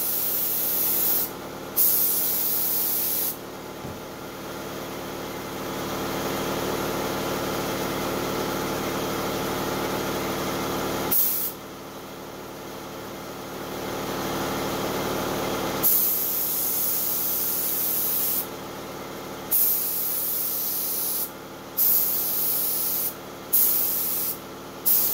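Gravity-feed airbrush spraying in short on-off bursts of hiss, a second or two each, coming more often toward the end. Under it runs a steady machine hum, likely its air compressor, which swells for several seconds at a time in the middle.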